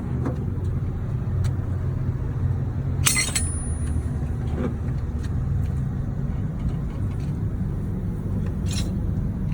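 Steady low rumble of an idling vehicle engine, with a short sharp sound about three seconds in.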